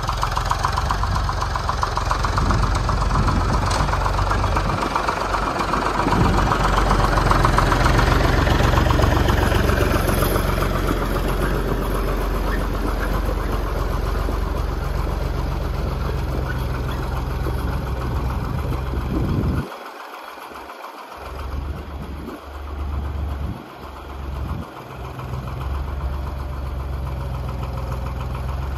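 Zetor 4718 tractor's three-cylinder diesel engine running steadily, warmed up and running smoothly after a cold start on a frosty morning. About two-thirds through, the sound drops and wavers for a few seconds before returning.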